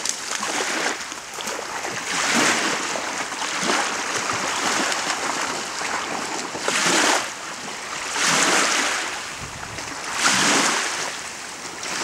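Small waves washing and lapping onto a lake shore, the hiss swelling and fading every one to two seconds.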